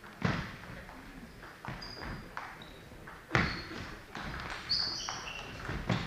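Table tennis rally: a celluloid ball clicks sharply, at uneven intervals, off the bats and the table, about five hits in all, the loudest about three seconds in. Sports shoes squeak briefly on the hall floor in between.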